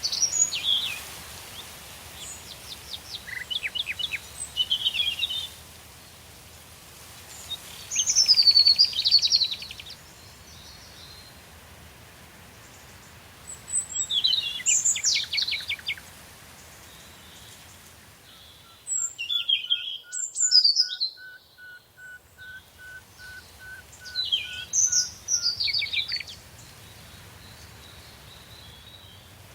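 Songbird singing: a phrase of quick high sweeping notes with a fast trill, repeated about every five seconds, over a faint steady background. In the second half a second, lower bird call runs alongside as an even string of short notes.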